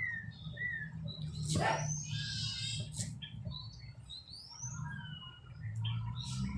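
Small caged birds chirping again and again in short rising and falling calls, with one fast trill about two seconds in. A steady low hum runs underneath, and a single sharp tap comes about three seconds in.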